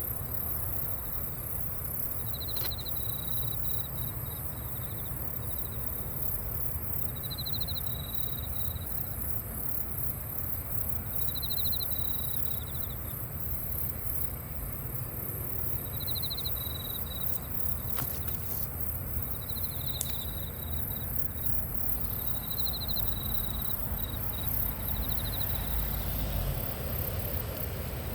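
Outdoor insect chorus: short trilled chirps repeat every few seconds over a constant high-pitched insect buzz, with a low steady rumble underneath and a few faint clicks.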